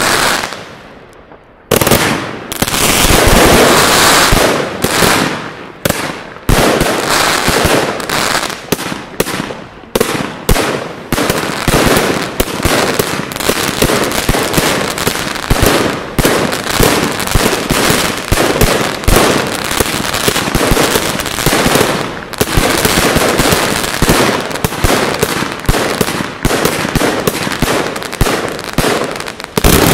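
Vulcan 'Berlin' 144-shot 25 mm fireworks cake firing: shells launching and bursting in rapid succession, many bangs a second. There is a brief lull about a second in, after which the firing runs on without a break.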